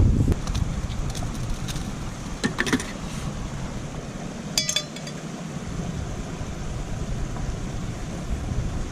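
Wind buffeting the microphone, with a few light clicks and one bright metallic clink that rings briefly about four and a half seconds in, like metal camp cookware being handled.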